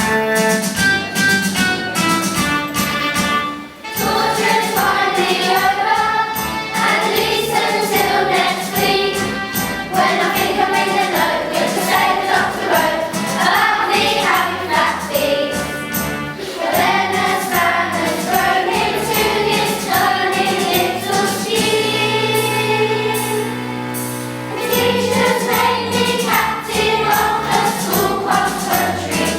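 A choir singing a song with instrumental accompaniment. The singing comes in about four seconds in after a short instrumental opening, and there is a long held chord near the end.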